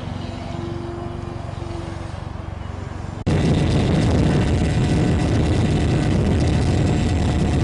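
Radio-controlled model airplane engine running in flight, a steady drone with a faint held tone. About three seconds in it cuts abruptly to a much louder, closer engine sound that stays steady.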